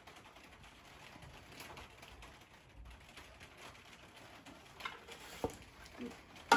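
Quiet kitchen handling sounds as thick chocolate spread drips from a stainless steel Thermomix bowl into a glass jar. A few light knocks come near the end as the steel bowl is set back into the machine's base.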